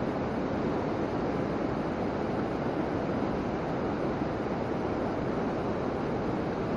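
Steady rushing of flowing stream water, an even noise with no breaks or distinct events.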